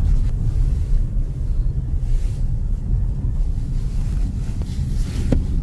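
Wind buffeting the microphone in a steady low rumble, mixed with the rumble of a car driving over frozen lake ice.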